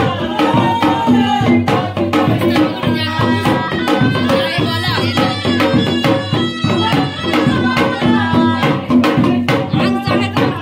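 Festive Indian folk music: a fast, steady hand-drum beat with singing over it.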